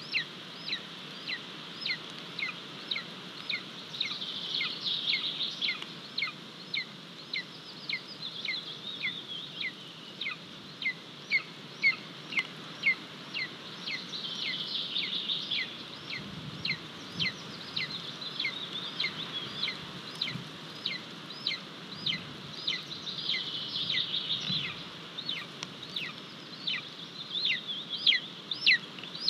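Golden eagle chick giving repeated food-begging calls: a long run of high, thin whistles that each slide downward, about one and a half a second.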